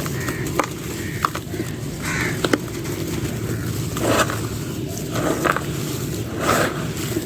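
Dry clay crumbling: sharp crunchy snaps and several short gritty bursts of breaking and crumbling.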